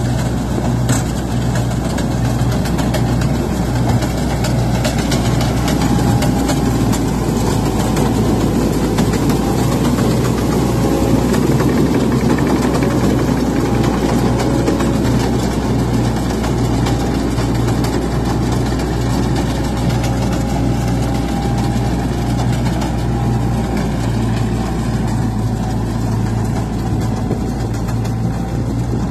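Kartar 3500 combine harvester's diesel engine running steadily under load as the machine harvests rice, with a steady low drone and the noise of its cutting and threshing gear. It grows a little louder around the middle as it passes close.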